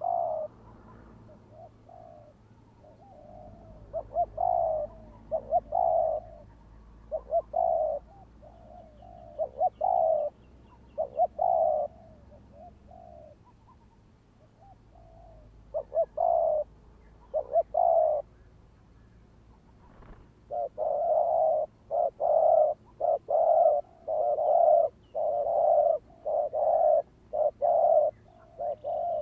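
Spotted doves cooing, a caged decoy and a wild bird calling back and forth. The coos come in spaced phrases at first, then in a fast, steady run of loud coos for the last third.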